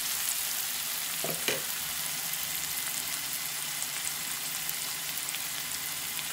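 Chopped onions sizzling and crackling in hot oil in a wok, being sautéed until they brown. A brief knock about a second and a half in.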